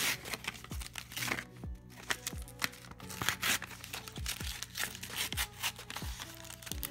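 Yu-Gi-Oh! booster pack wrapper crinkling and tearing as it is ripped open by hand, over background music with a steady beat.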